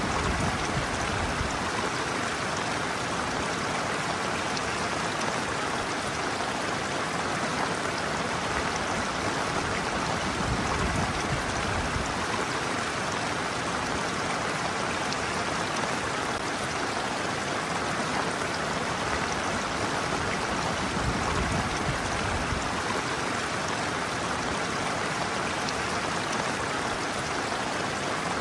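Shallow stream water running and splashing steadily over a slope.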